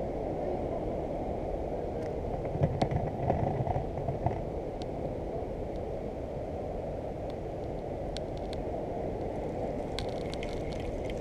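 Steady low rushing outdoor ambience of wind and sea, with a few faint clicks about two to four seconds in and again near the end.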